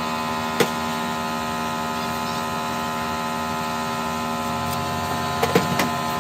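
A steady machine hum, many even tones held at constant pitch, with one sharp click about half a second in and a few knocks near the end.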